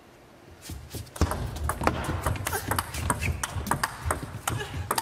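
Plastic table tennis ball struck back and forth in a rally. After a quiet first second it goes into a quick run of sharp clicks off the rackets and the table.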